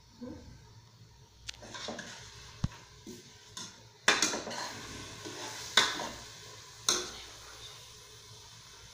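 A metal ladle knocking and scraping against an aluminium pressure-cooker pot while stirring. A few light clicks come first, then three loud ringing clanks, about four, six and seven seconds in.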